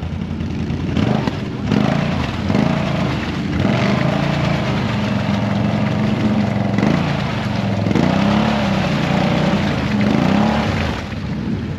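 Off-road vehicle engine revving up and down under load, its pitch rising and falling again and again from about a second in until shortly before the end.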